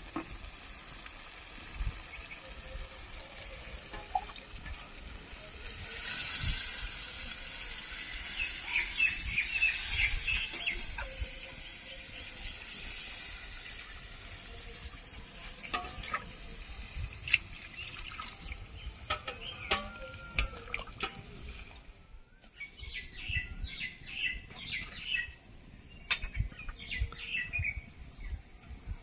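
Water poured into a pot of fried spiced chicken, a rushing splash a few seconds in, followed by scattered knocks of a spoon against the pot. Birds chirp throughout, more plainly in the last several seconds.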